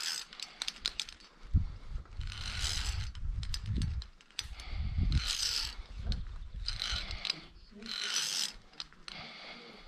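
Via ferrata gear: metal clicks, then repeated short hissy scrapes every second or two, typical of carabiners clipping and sliding along the steel safety cable.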